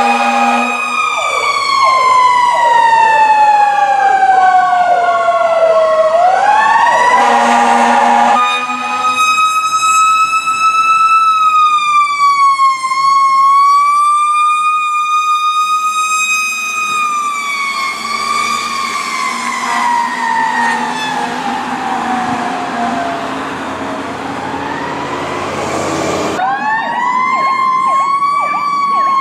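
Fire truck sirens wailing, the pitch sliding slowly down and back up, with steady horn blasts near the start and again about seven seconds in. The sound changes abruptly twice as one responding truck's siren gives way to another's.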